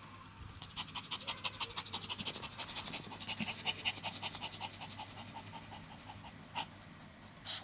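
Dog panting fast and evenly, several breaths a second, tailing off after about five seconds; two short separate breaths or sniffs near the end.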